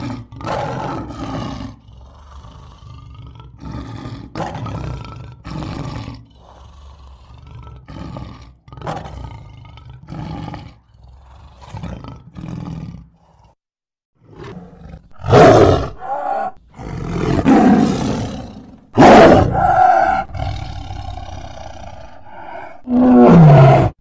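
A male lion roaring: a run of short, deep grunting roars about one a second. After a brief pause come several louder, longer big-cat roars, the last one falling in pitch near the end.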